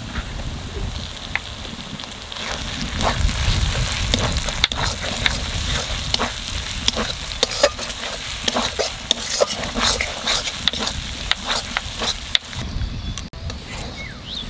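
Onion and ginger-garlic-chilli masala with freshly added nut paste frying and sizzling in an aluminium kadai, stirred with a spatula that scrapes and taps against the pan again and again.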